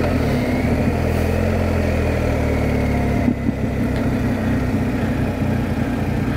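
BMW R1250GS Adventure's boxer-twin engine running as the motorcycle slows into a hairpin bend, with a steady hiss of wind and road noise over it. The engine note changes about three seconds in.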